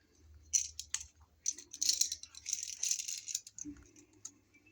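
Metallic rattling and scraping as a bare copper ground wire is worked around the green ground screw of a three-prong wall outlet: a few sharp clicks, then about two seconds of dense rattling that dies away.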